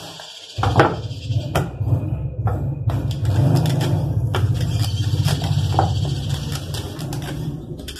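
Wooden rolling pin rolling dough on a stone countertop: a low rumble that starts about half a second in and keeps on, with scattered knocks.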